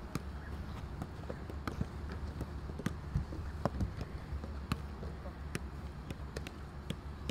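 Football being juggled: a run of short, sharp taps and thuds as the ball strikes feet and knees, about two a second at uneven spacing, over a steady low rumble.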